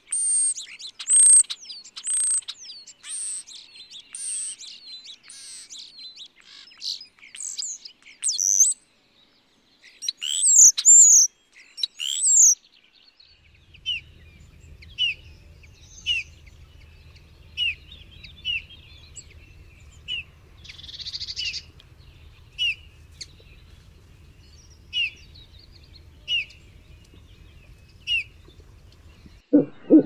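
A common starling singing a varied stream of whistles, chirps and gliding notes. About 13 seconds in it gives way to a male Eurasian bullfinch's short, soft piping calls, repeated every second or so over a faint low hum.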